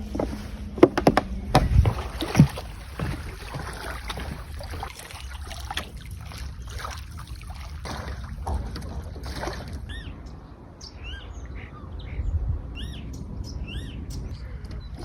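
Several sharp knocks and clatter over a low rumble, then a small bird chirping repeatedly in short arched chirps from a little past the middle on.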